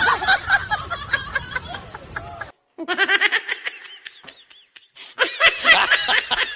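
Laughter in three stretches, each broken off abruptly by a short silence.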